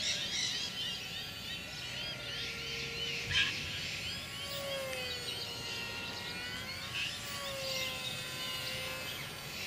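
The small electric motor and three-blade prop of an E-flite UMX F4U Corsair RC plane whining overhead, its pitch slowly rising and falling as it flies about, with birds chirping in quick repeated calls. There is one short knock just over three seconds in.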